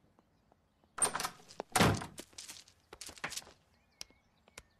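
A wooden door is opened and then shut, with a thunk about two seconds in, followed by a few quieter knocks and rustles.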